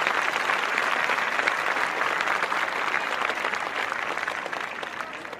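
Crowd applause, many people clapping at once, steady and then tapering off near the end.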